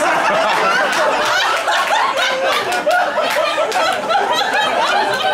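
Audience laughing: many overlapping laughs and chuckles, loud and unbroken.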